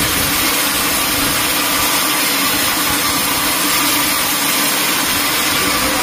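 Band sawmill ripping a teak log lengthwise: the blade cutting steadily through the wood under load, a dense, even noise.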